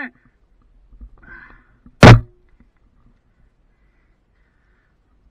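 A single loud, sharp knock about two seconds in, with a brief ringing after it.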